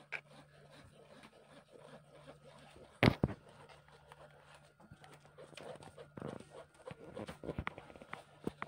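Metal spoon stirring and scraping wet smoothie pulp through a plastic sieve, with scattered small clicks and taps and a sharp double knock about three seconds in.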